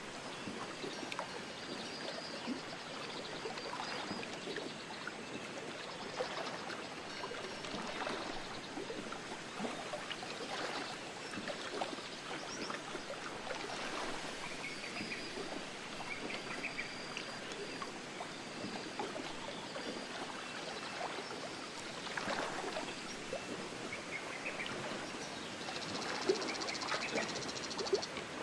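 Wind blowing steadily through trees, a rustling noise that swells every couple of seconds, with a few brief high bird chirps in the middle and near the end.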